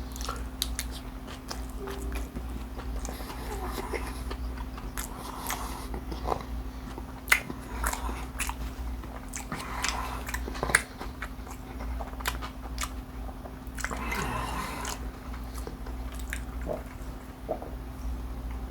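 Close-miked chewing and crunching of a crispy fried fish taco: repeated bites and crackly chews, with two sharper crunches about 7 and 11 seconds in.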